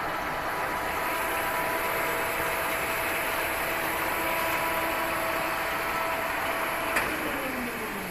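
1970 Waken-Maro 8-A engine lathe's headstock running with the spindle and large four-jaw chuck turning: a steady whine of several tones. About seven seconds in there is a click and the whine falls in pitch as the spindle runs down.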